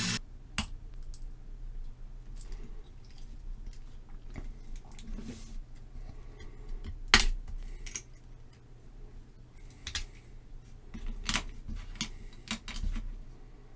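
Small clicks, taps and scrapes of a diecast toy car being handled and pried apart: the metal base and body knocking and clicking against each other and the fingers, with sharper clicks about seven and eleven seconds in.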